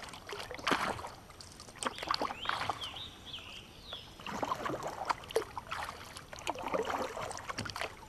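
Kayak paddle strokes dipping into slow river water, splashing and dripping in an uneven rhythm.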